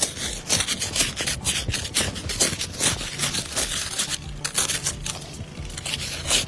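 Hand ice scraper scraping ice off a car window in rapid, repeated scratchy strokes.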